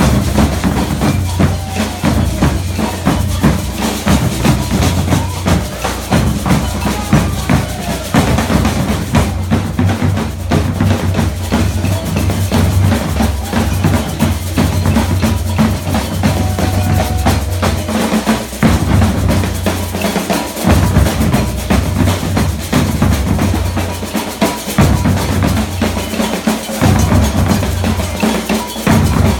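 Brazilian percussion ensemble playing a loud, dense maracatu-style groove: deep bass drums pound under crisp snare drums. The deep drums drop out for short breaks a few times in the second half.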